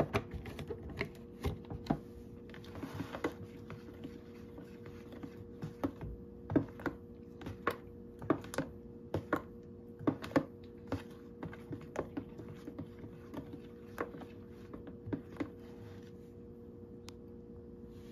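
Light, irregular clicks and taps of kitchen utensils and dishes being handled, about one or two a second and thinning out near the end, over a steady low hum.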